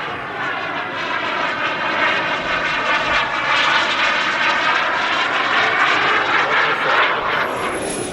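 Gas-turbine-powered RC model jet flying past, its engine rush growing louder to a peak about seven seconds in, then easing, as a thin high turbine whine appears near the end, falling slowly in pitch.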